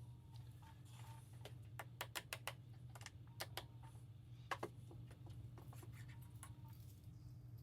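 Scattered light clicks and taps, several in quick clusters, over a steady low hum.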